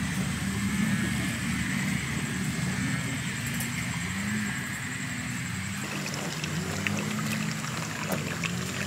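Outdoor ambience: a low, wavering hum throughout. After a cut about six seconds in, water trickles and a few light clicks are heard.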